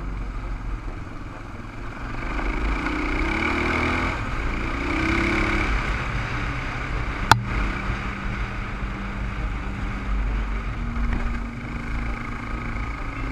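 Dual-sport motorcycle engine running on the move, heard from the rider's helmet camera, revving up twice in rising pulls between about two and six seconds in. A single sharp click comes about seven seconds in, and then the engine runs more steadily.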